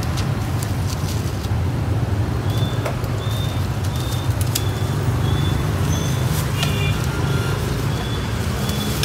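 Steady low rumble of street traffic. Over it, a faint high chirp repeats about every half second from a few seconds in, and there are a few sharp clicks.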